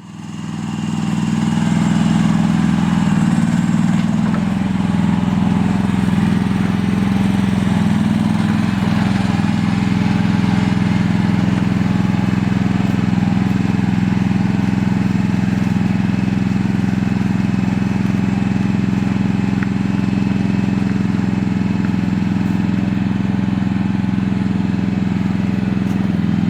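Mini excavator's diesel engine running steadily with a low, even hum.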